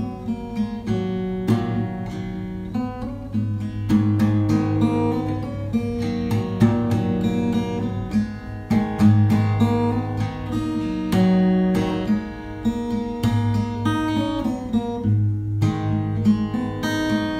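Background music on acoustic guitar: strummed and picked chords with a steady run of low notes.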